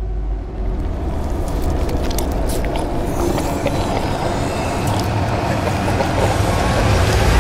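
A loud, dense low rumbling roar that starts suddenly and swells steadily, with scattered short crackles and hits over it: a sound-design build-up in a horror film.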